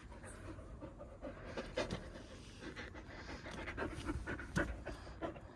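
Akita Inu dog panting, with scattered short clicks and rustles, the loudest about two seconds in and again near the end.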